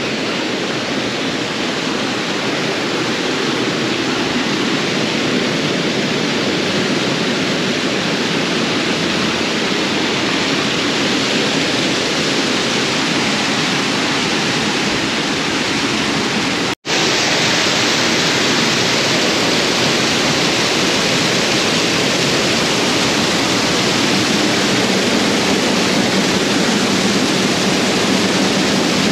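Small waterfall spilling over limestone ledges into a pool: a steady rush of falling water. About seventeen seconds in it breaks off for an instant, and after that the rush is a little louder and brighter.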